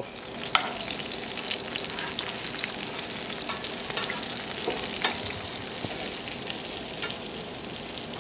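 Parmesan-crusted speckled trout fillets sizzling as they fry in a skillet. A couple of sharp knocks sound about half a second in and again about five seconds in.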